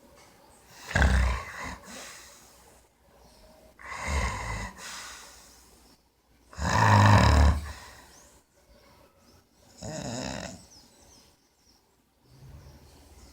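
Loud snoring that sounds like a piglet: four rasping snores about three seconds apart, each lasting about a second, with quieter breathing between them.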